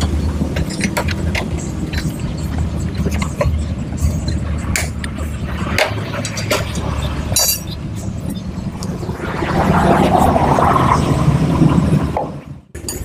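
Sharp metal clicks and clinks as a steel rod is worked against the parts of a dismantled Honda Grand motorcycle engine, with a steady low hum underneath. The hum grows louder and noisier about nine seconds in, then cuts out just before the end.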